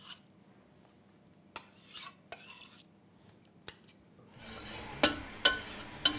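A few light knife taps and scrapes on a wooden chopping board, then, from about four seconds in, a metal spoon stirring a liquid marinade in a glass baking dish, with several sharp clinks of the spoon against the glass.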